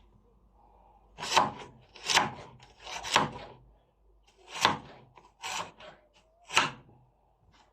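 Knife slicing through raw carrot onto a cutting board, six separate scraping cuts at uneven intervals.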